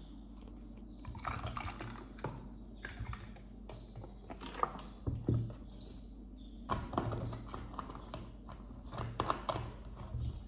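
Juice poured from a carton into a glass, with irregular clicks and knocks of the carton and glass being handled on a table.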